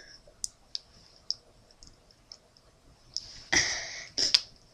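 A few small, scattered clicks, then a louder short rustling burst about three and a half seconds in, followed by one more sharp click.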